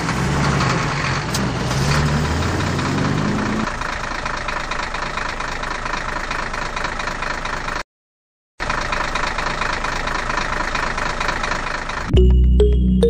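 Engine running steadily with a dense, rattly noise, a low hum in it rising in pitch over the first few seconds; the sound cuts out abruptly for under a second midway. Music begins near the end.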